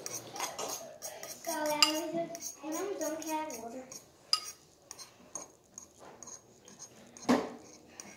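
Metal spoon scraping and clinking against a ceramic bowl as the last of the food is scooped out, with a few sharper clinks, the loudest near the end.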